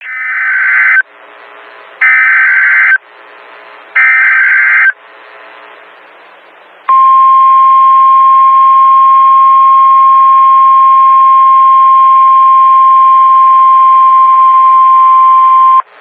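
Emergency Alert System SAME header data sent three times: three loud one-second bursts of screeching digital data about a second apart, with radio hiss between them. About seven seconds in comes the NOAA Weather Radio warning alarm tone, one steady pitch held for about nine seconds before it cuts off. Together they mark the start of an alert broadcast.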